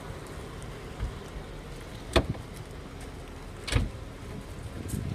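Two sharp knocks about a second and a half apart over a steady low rumble.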